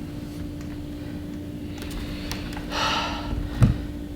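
A short, sharp exhale near the end, then a single dull thump and a few light clicks of handling, over a steady low hum.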